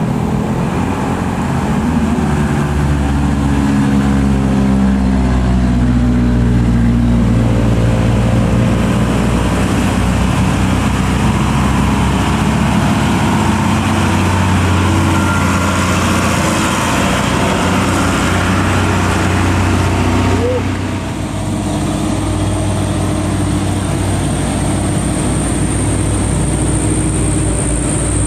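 Loaded Mitsubishi Fuso diesel truck engine labouring up a steep grade, its pitch rising and falling as it pulls through the gears, with other diesel truck engines passing after a break about twenty seconds in. A thin steady high whine joins near the end.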